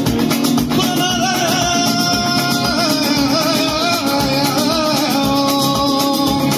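Gypsy rumba (rumba manouche) on strummed acoustic guitars, played in an even driving rhythm, with a man singing a wavering melody that comes in under a second in.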